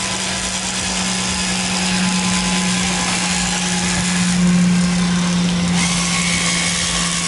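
Electric caulking gun's motor running steadily as it pushes a bead of urethane windshield adhesive out of the sausage-pack tube: one even hum with a hiss over it.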